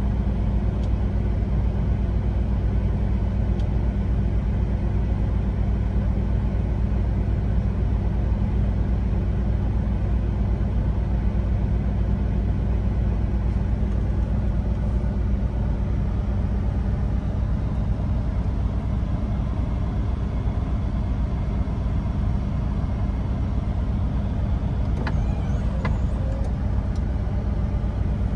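Semi-truck's diesel engine idling, a steady low rumble heard from inside the cab, with a steady hiss of rain on the windshield and cab.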